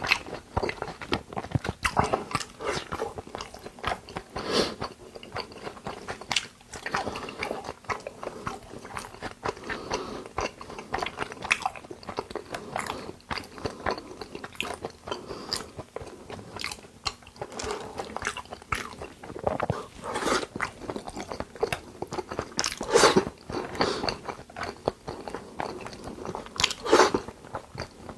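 Close-miked chewing and eating sounds of a person eating raw beef dishes: wet mouth clicks, smacks and bites in quick, irregular succession, with a few louder bites in the second half.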